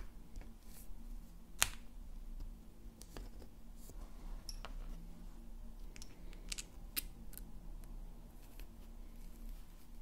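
Light, irregular clicks of wooden Honiton lace bobbins knocking together as they are handled on the lace pillow, the sharpest about a second and a half in, over a steady low hum.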